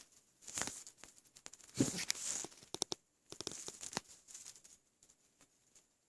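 Close-up belly noises from a stomach full of milk: gurgling with crackles and pops as air bubbles shift. They come in three crackly spells, the strongest about two seconds in.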